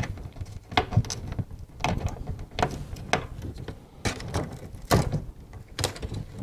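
Hands working plastic clips and a wire connector free inside an opened LCD TV: about eight sharp clicks and knocks at uneven intervals, with rustling of cables between them.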